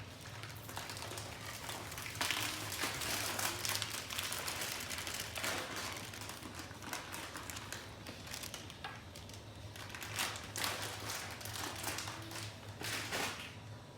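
Irregular rustling, crinkling and light tapping as cake-mix packaging and kitchen utensils are handled, under a faint steady low hum.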